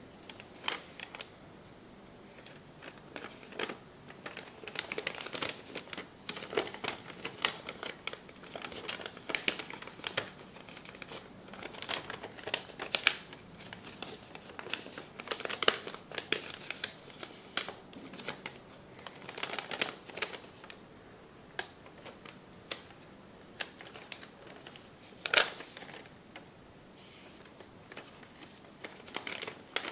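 A sheet of origami paper rustling and crinkling as it is folded and creased by hand, in a run of irregular short crackles. One sharp crackle, louder than the rest, comes late on.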